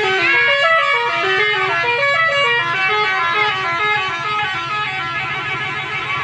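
A tour bus's Basuri 'telolet' multi-tone air horn playing a fast tune of short notes that step up and down in pitch.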